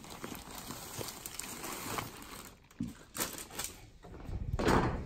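Plastic bags full of stuffed toys rustling and crinkling as they are handled, with a louder burst of rustling near the end.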